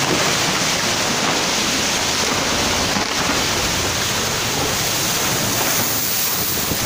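Loud, steady rushing noise of heavy rain and a landslide's flowing mud and water.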